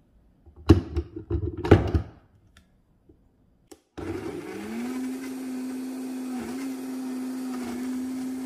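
A plastic blender jar knocks down onto a high-powered countertop blender's base a few times. About four seconds in, the blender motor starts, rises in pitch over about a second, then runs steadily as it purées avocados, cream, cilantro and pickled vegetables into a dip.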